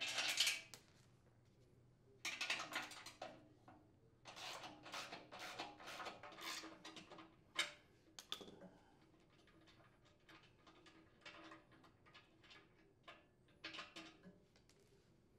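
A socket wrench ratcheting in short runs, with metal clinks as nuts and bolts are worked off a steel shredder housing. The clicking comes in several separate bursts.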